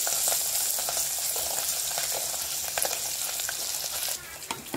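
Goda masala sizzling as it fries in a hot cooking pot, with scattered clicks and scrapes of stirring. The sizzle drops off suddenly about four seconds in.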